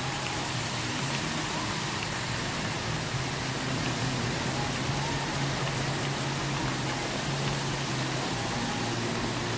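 Steady rushing noise of floodwater and rain, with a low steady hum underneath.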